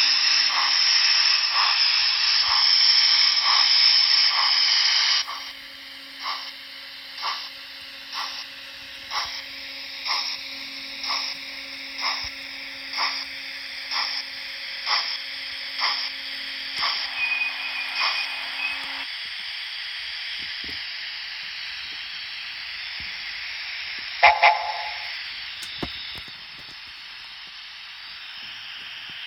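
DCC sound decoder in a Dapol model of the A4 Mallard playing steam locomotive sounds: a loud steam hiss, then steady chuffing about once a second over a low hum, which stops about two-thirds of the way through, leaving a quieter hiss with one short sharp sound near the end.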